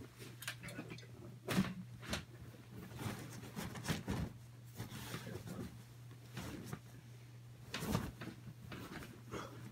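Fabric play tunnel rustling, with irregular knocks and thumps on the carpet as a person crawls through it; the loudest knocks come about one and a half, four and eight seconds in. A low steady hum runs underneath.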